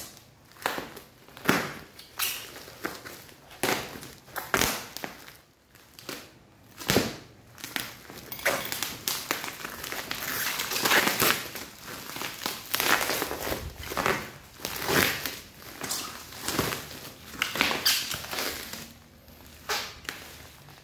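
Black plastic shipping bag crinkling and rustling as it is handled and opened by hand, in irregular strokes of varying loudness.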